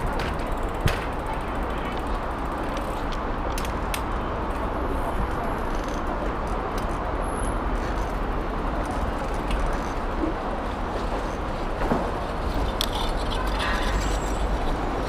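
Steady wind and road noise while riding a folding bicycle through the street, with a low rumble on the microphone and a few light clicks.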